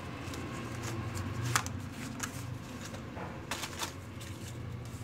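Cardboard pieces being handled on a table: light rustling with a few sharp taps and knocks, one about a second and a half in and two close together near the end, over a low steady hum.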